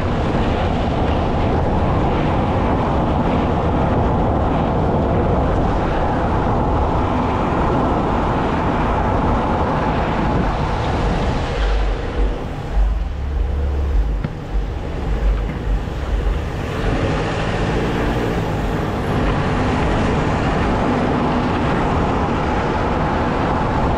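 A car driving on a rough street, heard from beneath it: a steady rush of tyre and road noise with a low rumble, and heavier low thumps and buffeting about halfway through.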